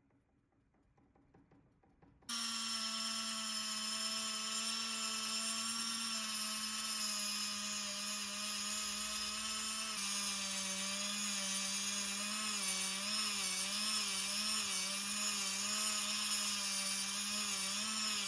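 A small handheld power tool's motor switched on about two seconds in, running with a steady whine. Its pitch drops a little about halfway through and then wavers up and down, as if pressed against work, and it cuts off at the very end.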